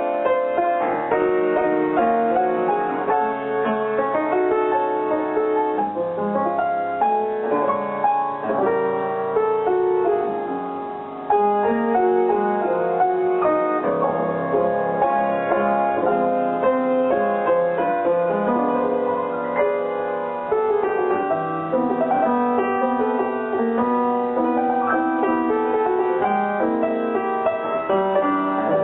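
Instrumental music with a piano prominent and many notes sounding together; it dips briefly about ten seconds in and comes straight back at full level.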